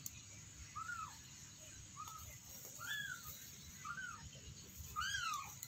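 Young kitten mewing: short, high mews that rise and fall in pitch, about one a second, the last one the loudest.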